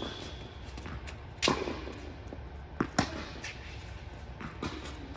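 Tennis rally on an indoor court: a series of racket strikes and ball bounces, about five sharp hits spaced through the few seconds, each ringing briefly in the large hall.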